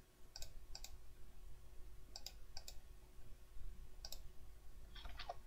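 Faint computer mouse clicks: six short clicks in three pairs, each pair about two seconds after the last.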